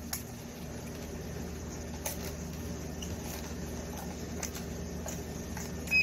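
Faint scattered clicks of RJ45 plugs and a handheld network cable tester being handled, over a low steady hum. Right at the end the cable tester gives a short electronic beep.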